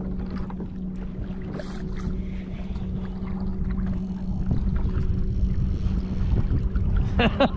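Wind rushing over the microphone with water noise around a kayak, and a steady low hum underneath. A voice starts briefly near the end.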